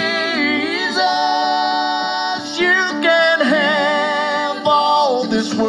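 Bluegrass gospel music: voices singing long, held notes with vibrato, with little instrumental backing.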